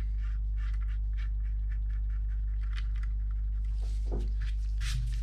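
Short scratchy scrubbing strokes, several a second, as solder flux is cleaned off a circuit board with rubbing alcohol, over a steady low hum.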